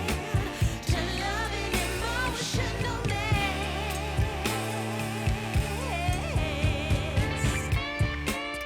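Background pop music: a vocal line sung with vibrato over a steady bass and a regular drum beat.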